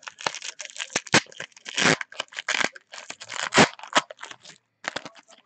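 Foil wrapper of a football trading card pack being torn open and crinkled by hand. It is a loud crackle, with the loudest rips about two seconds in and again about three and a half seconds in.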